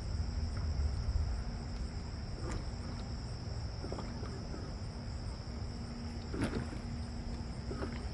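Wind rumbling on the microphone under a steady high-pitched buzz, with a faint hum coming and going and a few light knocks.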